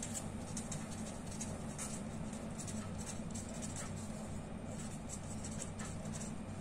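Marker pen writing by hand on paper: a run of faint, quick scratching strokes over a steady low hum.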